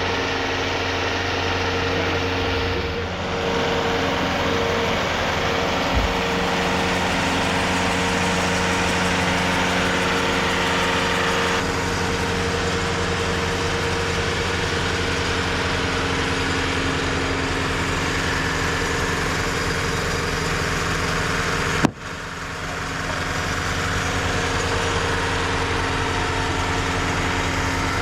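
TimberKing 2520 portable sawmill's engine running steadily, with a brief sharp click about 22 seconds in.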